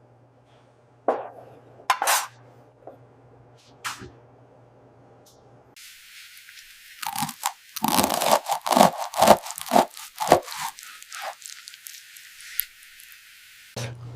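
Someone biting into and chewing a baked sausage roll. A few separate knocks come first, then a dense run of crunches in the second half.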